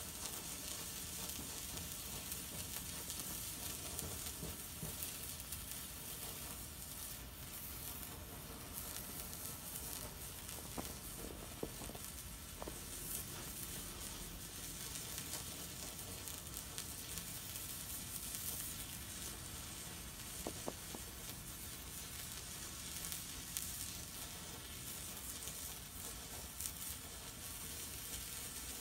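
Large homemade white flare of potassium nitrate, sulfur and flake aluminum burning with a steady hiss, with a few faint crackles about halfway through.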